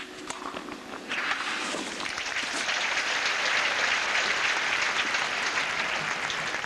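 Tennis crowd applauding after a point. The applause starts about a second in, builds, and eases off near the end.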